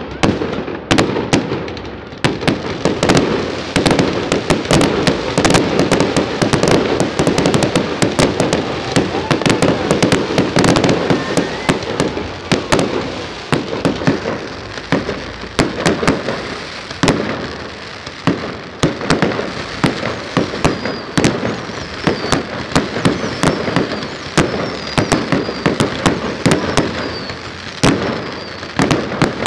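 Aerial fireworks display: a rapid, continuous barrage of shell bursts, several bangs a second with crackling between them, and short high whistles in the second half.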